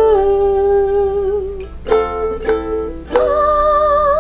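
A singer holds a long final note over a ukulele, then three strummed ukulele chords about half a second apart, the last one ringing out under another held, wavering note.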